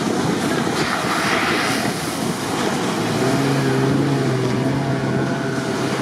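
Wind and surf noise, then from about three seconds in a Jeep Wrangler Rubicon's engine running at steady revs as it drives through deep sand.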